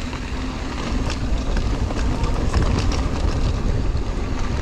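Wind rushing over a bike-mounted camera's microphone while riding a mountain bike on a dirt trail, with scattered clicks and rattles from the bike.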